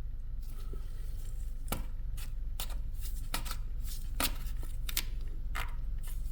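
Plastic oil extractor container being handled and turned over: about a dozen light, irregular clicks and taps over a steady low hum.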